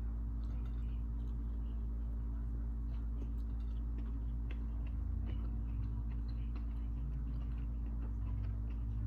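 A steady low hum with faint, scattered light clicks and ticks over it.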